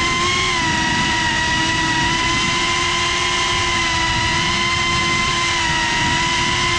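FPV quadcopter's brushless motors and propellers running at a steady cruise, a high whine that wavers a little in pitch, over rushing prop wash and wind noise.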